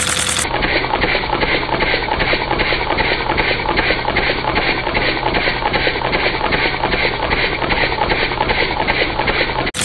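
Four-cylinder oscillating LEGO vacuum engine running: a fast, even plastic clatter from its cylinders and crank over a steady hum, sounding muffled and dull. The sound changes about half a second in and again just before the end.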